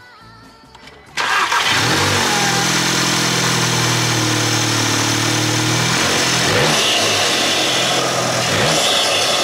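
Volkswagen Golf GTI Mk7's 2.0-litre turbocharged four-cylinder cranking and catching about a second in, then idling steadily. It breathes through a newly fitted APR carbon-fibre open intake with a cone filter.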